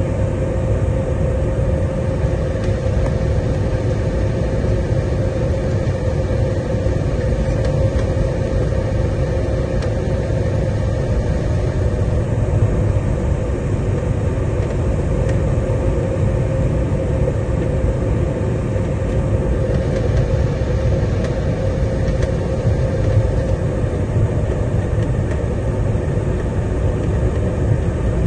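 Airliner cabin noise during the approach: a steady low noise of the engines and rushing air, with a constant hum running through it.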